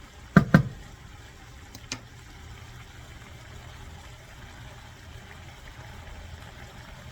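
Stir fry simmering in a pan over a steady low hum, with two sharp knocks about half a second in and a lighter click near two seconds.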